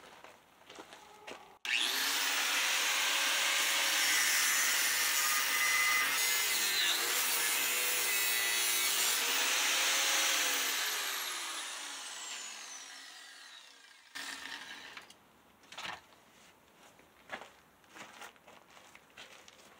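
Handheld power grinder switched on and run hard against the steel axle housing for about nine seconds, its motor pitch wavering under load, then released and spinning down with a long falling whine. A few scattered knocks and clinks of metal parts follow.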